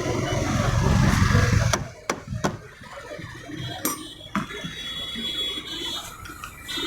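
A low engine rumble for about the first two seconds that then fades, followed by a few scattered knocks and clicks.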